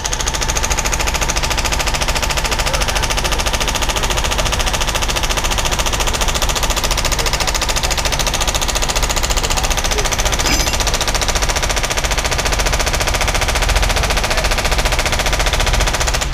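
Hydraulic hammer attachment on a mini excavator rapidly hammering a steel pipe down into the ground, a fast, steady rattle of metal blows that stops suddenly at the end.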